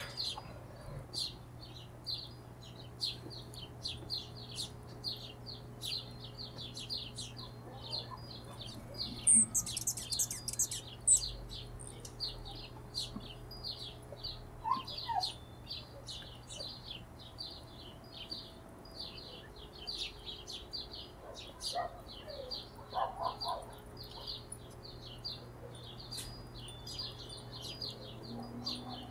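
Hummingbirds giving rapid, high, short chip notes, several a second, with a louder burst of squeaky twittering about ten seconds in. A few lower chirps come later, over a steady low hum.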